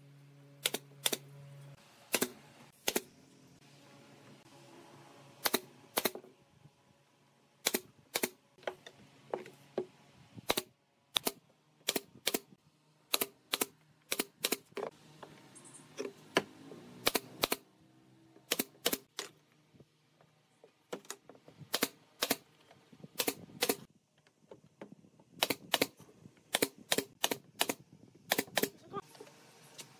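Brad nailer firing brads into wooden slats and a curved frame: sharp snapping shots, singly, in quick pairs and in short runs, several dozen in all.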